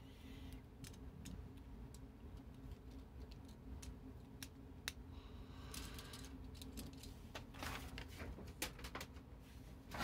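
Faint, scattered clicks of small plastic Lego pieces being handled and fitted together, coming more thickly near the end, over a low steady hum.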